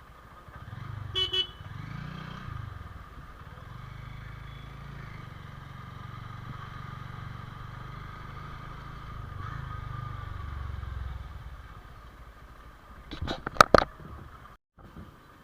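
Motorcycle engine running steadily while riding, with a short double horn toot about a second in. Near the end comes a quick cluster of loud sharp knocks.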